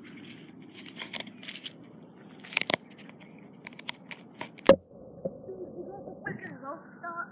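Close handling noise from an iPod in a waterproof case held against the shore: scrapes, crackles and scattered clicks, with one sharp knock about two-thirds of the way through. A muffled voice comes in near the end.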